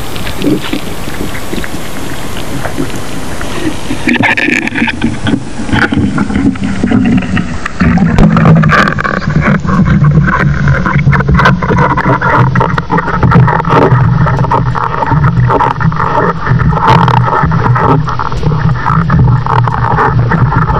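Underwater sound picked up by a speargun-mounted camera: a muffled wash of water with frequent knocks and clicks from the speargun and line being handled. From about 8 s a steady low drone comes in and stays as the loudest sound.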